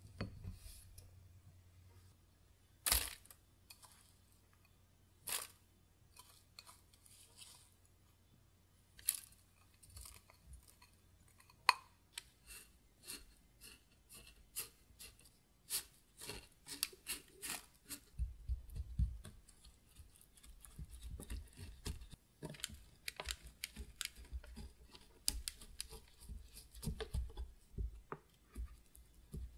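Small wooden spoon working buttered biscuit crumbs: a few scattered clicks and scrapes against a glass bowl, then, from about halfway, dense crunchy scraping and soft thumps as the crumbs are spooned into a metal mould and pressed down.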